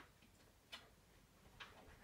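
Near silence: quiet room tone with a few faint, soft clicks at uneven intervals.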